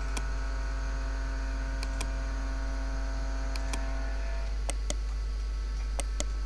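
Steady low electrical mains hum from the recording setup, with about eight sharp computer-mouse clicks scattered through it, some in quick pairs like double-clicks. A fainter steady tone stops about four and a half seconds in.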